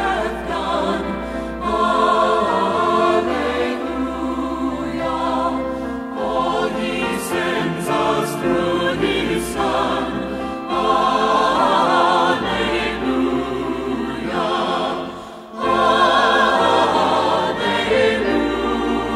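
Background music: a choir singing, with a short drop in loudness between phrases about fifteen seconds in.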